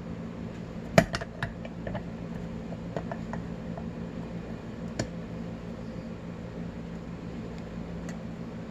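Scattered light clicks and taps of a metal padlock being handled, the sharpest about a second in and another near five seconds, over a steady low hum.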